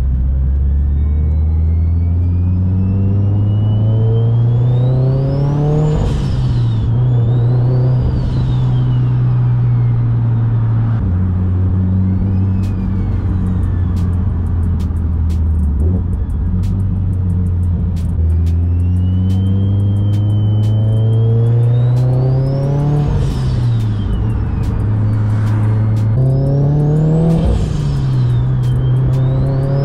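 Mitsubishi Evo X's turbocharged four-cylinder, heard from inside the cabin, pulling hard through the gears several times: the engine note climbs and drops back at each shift, and a loud turbo spool whine from the T51R-modded Precision 6266 turbocharger rises to a high pitch with each pull and falls away at the shift.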